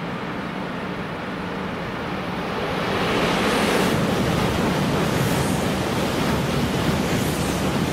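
Shinkansen bullet train passing on the near track at speed: a rushing roar of air and wheel noise that swells about three seconds in and holds loud as the carriages stream past.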